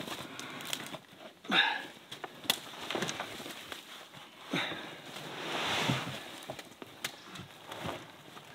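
Black plastic garden cart knocking and scraping as it is heaved up and tipped over the edge of a wooden raised bed, then a load of compost sliding out in a rushing pour about five to six seconds in.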